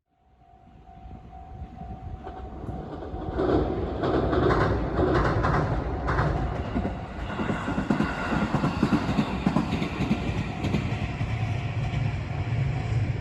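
A Fukuchiyama Line train on the rails, growing louder over the first few seconds and then running steadily with a deep rumble and wheel clatter. A thin steady whine is heard early on.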